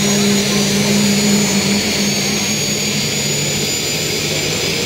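Radio-controlled model jet engine running as the model taxis, with a steady rushing noise and a thin high whine that slowly rises in pitch. A lower engine tone fades out about two and a half seconds in.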